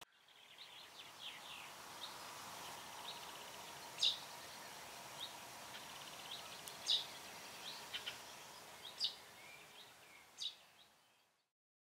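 Birds chirping over a soft outdoor ambience: many short high chirps and a few quick trills, with four sharper, louder chirps spread through. The ambience fades in at the start and fades out near the end.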